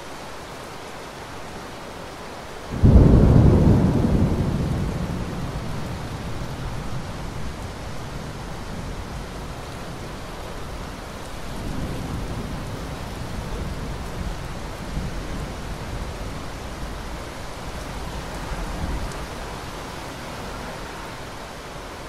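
Thunderstorm: a loud clap of thunder about three seconds in that rumbles and fades over several seconds, over a steady hiss of rain. A second, quieter roll of thunder rumbles from about halfway until near the end.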